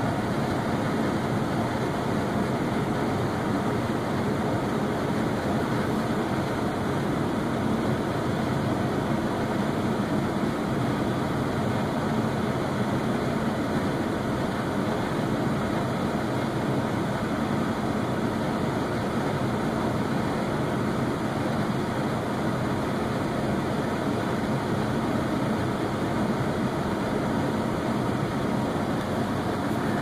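HVAC indoor air handler's blower running steadily on high speed, a constant even whoosh of air and motor. The system's test readings flag low airflow even at this top blower speed.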